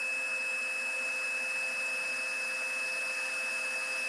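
Embossing heat tool running steadily on its high setting: a constant rush of blown air with a steady high whine, melting white embossing powder on a Versamark-stamped image.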